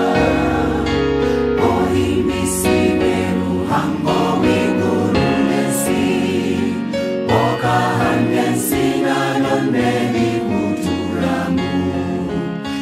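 Mixed choir of women and men singing a gospel song.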